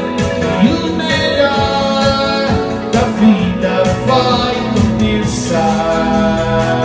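Live band playing a pop-rock song, with a singing voice over sustained chords and regular drum hits.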